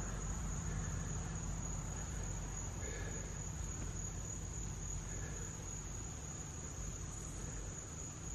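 Crickets and other night insects calling in a steady, high-pitched chorus, over a faint low rumble.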